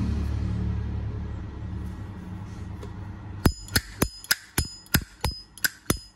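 A Zippo lighter's hinged lid being snapped open and shut over and over, starting about three and a half seconds in. It makes a quick series of sharp metallic clicks with a brief ringing ping, about three a second. Under it at the start is a low rumble that fades away over the first two seconds.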